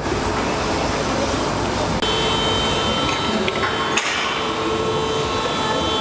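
Steady workshop background noise, with a light knock about four seconds in.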